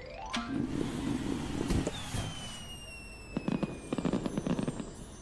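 Cartoon fireworks sound effect: a quick rising whistle as a rocket goes up, then bursts and crackling. A long falling whistle follows about two seconds in, and a second round of sharp crackling bursts comes later.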